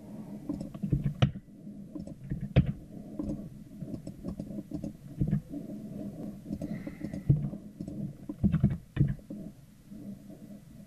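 Scattered clicks of computer keys and mouse buttons, about ten over the stretch, several close together near the end, over a low, uneven rumble.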